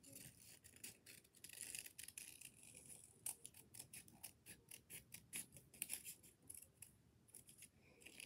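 Scissors cutting paper: a long run of faint, quick snips, several a second, as a drawn shape is cut out.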